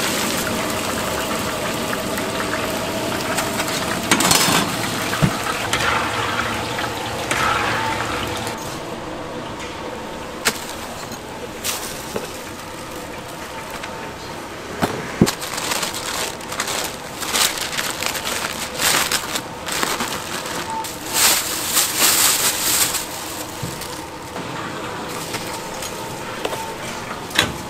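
Whole battered chicken deep-frying in a cast-iron cauldron of hot oil, the oil sizzling and bubbling steadily. After about eight seconds the sizzle drops away, leaving scattered clicks and short rustling bursts.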